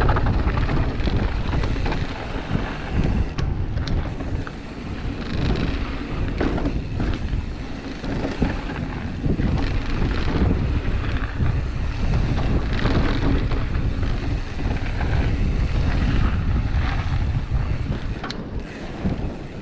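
Wind buffeting the microphone over the steady rumble and rattle of a full-suspension mountain bike riding down a rough downhill trail, with many small knocks as it goes over bumps.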